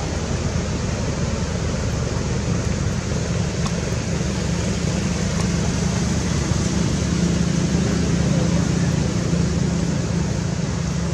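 Steady rushing background noise with a low hum underneath that swells slightly partway through, and no distinct events.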